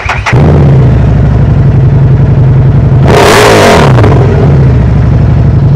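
Harley-Davidson Street 750's liquid-cooled 750 cc V-twin idling steadily through its stock exhaust. About three seconds in, a loud whoosh lasting about a second sweeps over it.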